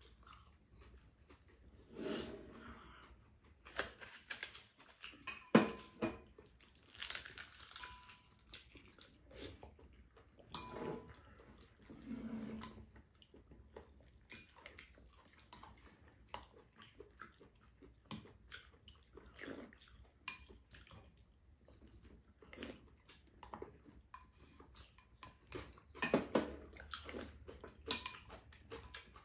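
Two people eating at a table: chewing and mouth sounds, with chopsticks and a spoon clicking against ceramic bowls. The sharpest click comes about five and a half seconds in.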